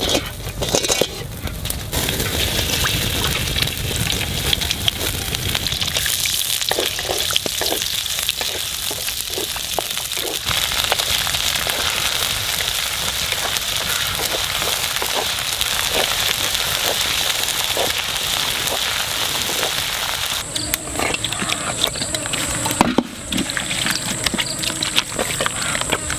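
Red spice paste frying in oil in a blackened wok over a wood fire: a steady sizzle with crackle, stirred with a wooden spatula. About twenty seconds in the sizzle stops and gives way to quieter, irregular handling sounds.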